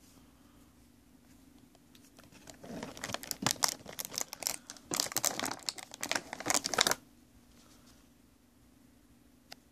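Packaging crinkling and crackling as it is handled and opened by hand, in a dense burst from about two and a half to seven seconds in, followed by a single sharp click near the end.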